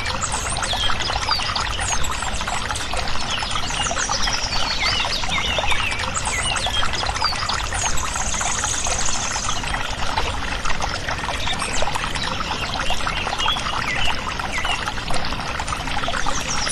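Water pouring steadily from a thin plastic tube, splashing over fingers and onto a plastic toy backhoe loader.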